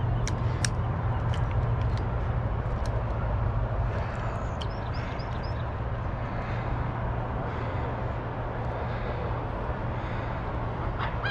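Steady outdoor background rumble with a low hum. A few sharp clicks fall in the first three seconds, and a short run of high bird calls comes about five seconds in.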